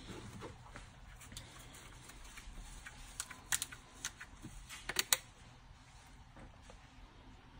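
A few light, sharp clicks and taps, scattered in the middle of the stretch with a small cluster about five seconds in, over a faint steady low hum.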